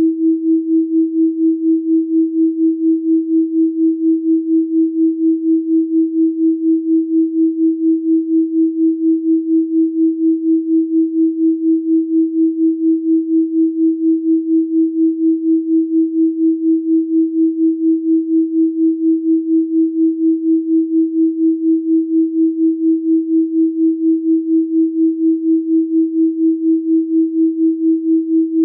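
A steady 324 Hz pure sine tone, its loudness pulsing evenly several times a second.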